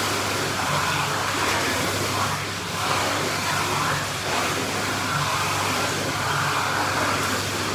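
Pool jets churning the water: a steady rushing noise with a low hum underneath.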